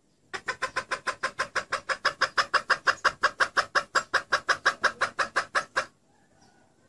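Female red junglefowl giving a long, rapid run of clucks, about six a second, that stops abruptly near the end. This is the hen call used to lure male junglefowl.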